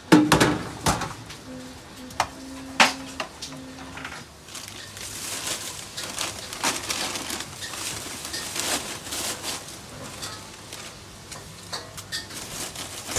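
Clinks and knocks of dishes and utensils with scattered clatter. The loudest knocks come right at the start and about three seconds in, and a few short steady tones sound about two to four seconds in.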